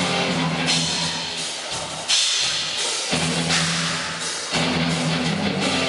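Instrumental rock band playing live: distorted electric guitar chords over a pounding drum kit with repeated cymbal crashes.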